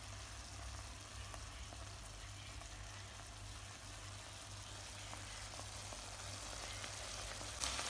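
Pan of anchovies with grated coconut sizzling softly, uncovered, as the last of the cooking water dries off, over a steady low hum. The sizzle grows a little louder near the end.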